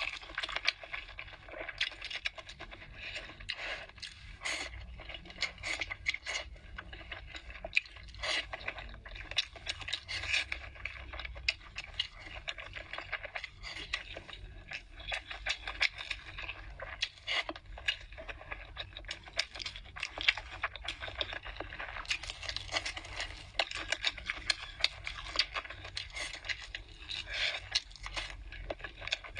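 Close-miked eating of spicy hotpot noodles: wet chewing and slurping, with many small irregular clicks and scrapes of chopsticks in the dish.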